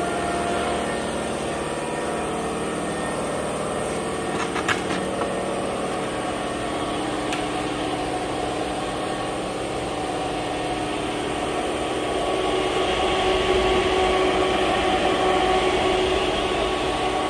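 Mazak CNC lathe powered up and sitting idle, its hydraulic pump unit and cooling fans running with a steady hum of several held tones; the spindle is not turning. The hum grows louder about twelve seconds in, with a couple of faint clicks about four seconds in.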